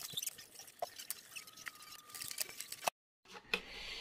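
Small, quiet clicks and scrapes of a hand screwdriver driving screws into a 3D-printed plastic clock back. The sound cuts off abruptly about three seconds in.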